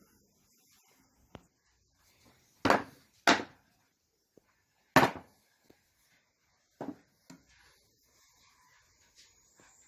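Cedar boards being handled and knocked together or set down: a few sharp wooden clunks, two close together about three seconds in, the loudest at five seconds, and a fainter pair near seven seconds.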